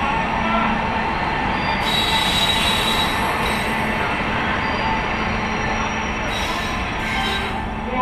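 A WAG-9HC three-phase electric freight locomotive and its covered goods wagons roll slowly past, with a steady rolling rumble and a low steady hum. A thin high wheel squeal comes and goes, strongest about two seconds in.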